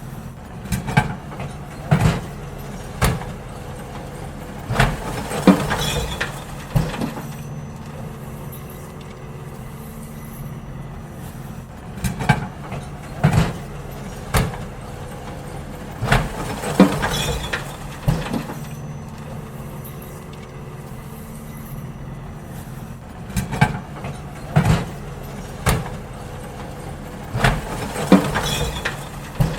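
Garbage truck running steadily while emptying bins: clusters of loud bangs and clattering from bins being tipped, repeating about every eleven seconds.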